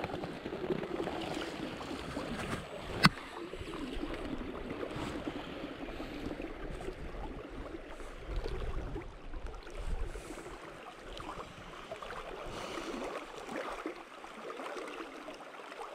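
River current flowing and swirling around the legs of a knee-deep wading angler, a steady rushing wash with one sharp click about three seconds in.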